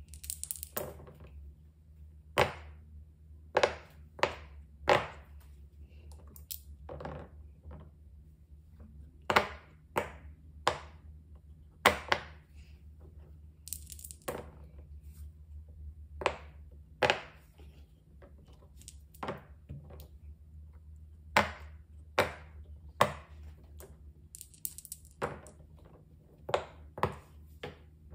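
Silicone pop-it bubbles pressed one at a time, each giving a sharp pop roughly every second or two, with small plastic dice rattling in a hand and tumbling onto the silicone board a few times. A low steady hum lies underneath.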